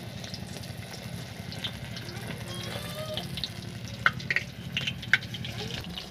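Chaap sticks sizzling as they deep-fry in hot oil in a steel kadhai, over a steady low hum. About four to five seconds in, the metal ladle clinks sharply against the pan a few times.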